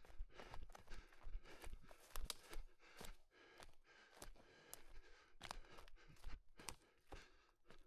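Running footsteps on the forest floor, with irregular crackling of twigs and leaves and low thuds, and the runner's heavy breathing.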